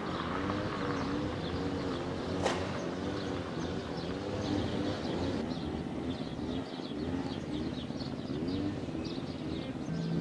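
Outdoor ambience: doves cooing over and over in short arching calls, with small birds chirping high above them and a steady low rumble underneath. A single sharp click comes about two and a half seconds in.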